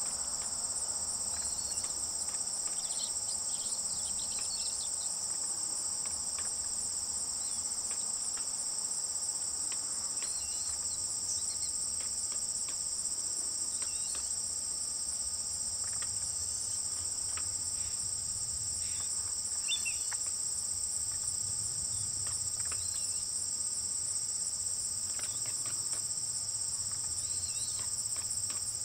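Steady insect chorus in a marsh: a continuous high, even trilling that never breaks, with a few faint short chirps scattered over it.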